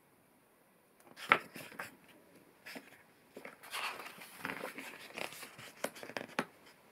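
Paper pages of a picture book being turned by hand: a run of rustling and flapping with sharp snaps as the pages flip over, starting about a second in.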